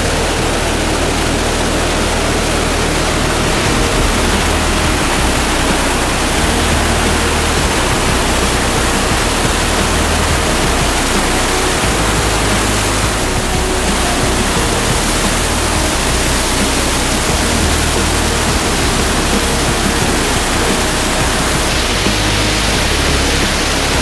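Large waterfall in flood, the Caroní River pouring over La Llovizna falls: a loud, steady rush of water.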